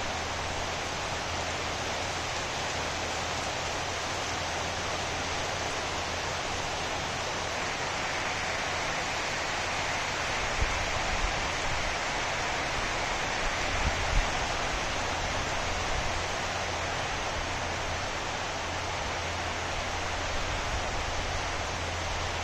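Heavy rain falling steadily on dense tropical foliage, a constant even hiss. A few brief low thumps come through about halfway.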